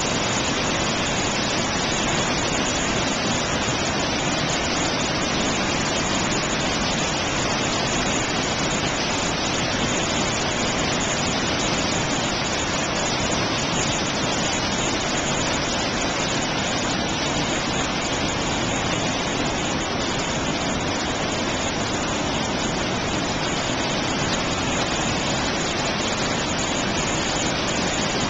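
Iguazu Falls, with heavy, muddy brown water pouring over the cascades, makes a steady, unbroken rush of falling water that does not change throughout.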